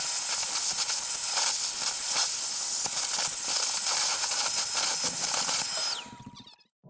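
Vacuum cleaner running, sucking crud out of the bottom of an electric water heater tank through the element opening. It switches off about six seconds in, its whine falling away.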